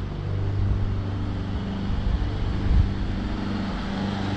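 Street traffic: a steady low vehicle hum, with a louder low rumble that swells and peaks a little past halfway.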